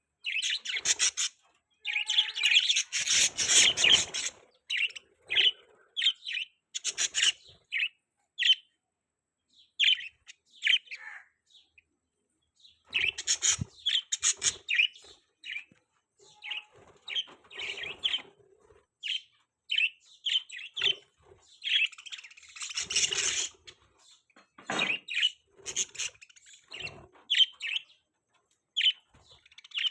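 Budgerigars chirping and warbling in short, irregular bursts of high chatter, with brief pauses between them.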